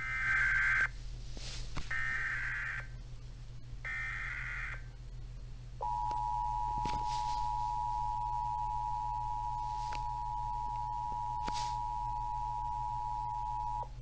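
Emergency Alert System SAME header: three short bursts of warbling digital data tones about a second apart. These are followed by the EAS two-tone attention signal (853 and 960 Hz sounded together), a steady dual-pitch tone held for about eight seconds that cuts off sharply near the end.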